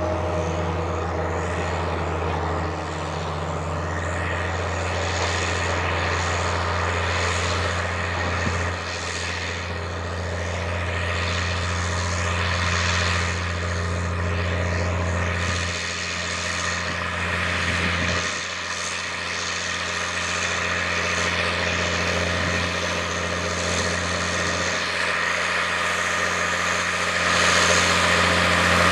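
Big Bud 525/50 four-wheel-drive tractor's Detroit Diesel 16V-92 two-stroke V16 running steadily under heavy load while pulling a wide field cultivator through the soil. It is a deep, continuous diesel drone whose strength swells and dips a little a few times.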